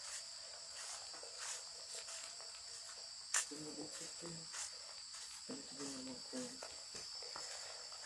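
Crickets chirping in a steady, high-pitched night chorus. A single sharp click stands out about three and a half seconds in, and faint low voices murmur briefly in the middle.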